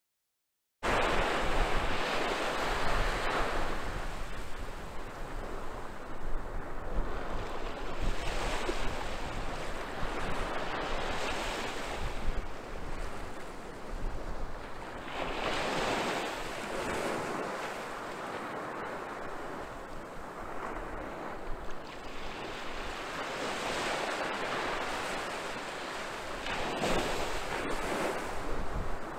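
Small sea waves breaking and washing up a sandy beach, the surf swelling and ebbing every several seconds, with wind rumbling on the microphone. The sound starts abruptly about a second in.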